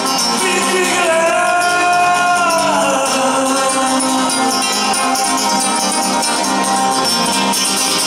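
Live acoustic guitar played fast with the fingers, with a man singing a long held note that bends and falls away from about a second in to about three seconds in. It is heard through an arena PA.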